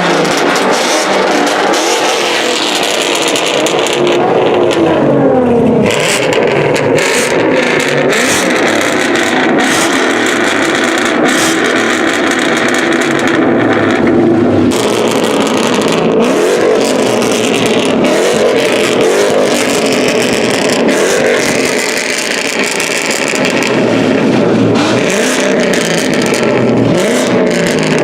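Loud car engines revving and accelerating, their pitch rising and falling again and again.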